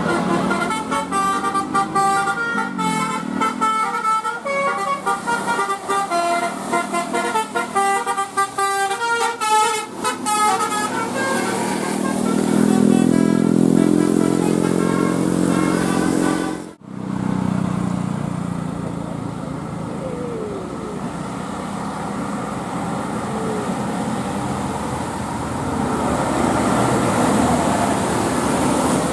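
Bus telolet horn, a set of air horns sounded in sequence, playing a quick tune of short stepped notes for about the first eleven seconds. Then a lower held sound, a sudden break a little past halfway, and steady bus engine and traffic noise after it.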